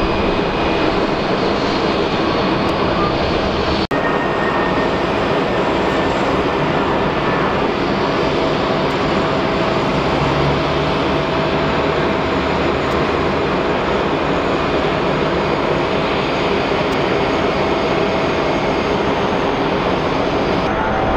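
Steady roar of jet airliner engines across the airport, with a brief dropout about four seconds in.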